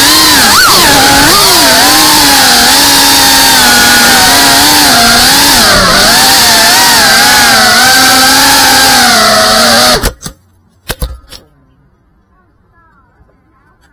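FPV quadcopter's brushless motors and propellers whining at close range from the onboard camera, the pitch rising and falling with the throttle. About ten seconds in the whine cuts off suddenly and a couple of knocks follow as the drone crashes into a tree.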